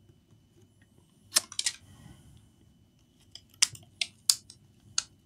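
Light, sharp clicks and taps from a metal multimeter probe and a laptop motherboard being handled on the bench: three quick clicks about a second and a half in, then four more spaced out near the end, over a faint steady high whine.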